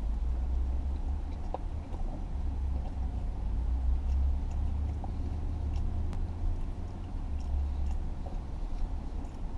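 Low, steady rumble of an idling car, with a few faint small clicks over it.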